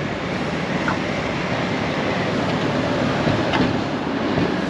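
Steady vehicle noise, an even rumble and hiss, with two faint short squeaks: one about a second in and one past three seconds.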